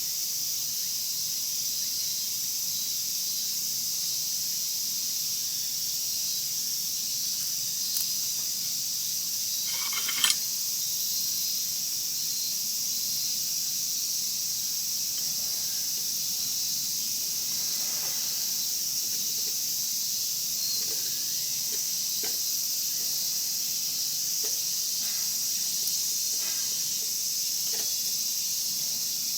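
Wood fire in a kamado crackling with scattered pops, the loudest about ten seconds in, over a steady high hiss.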